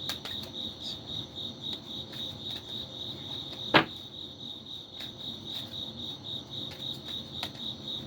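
Cricket chirping steadily in a high, even pulse, with one sharp knock a little before halfway.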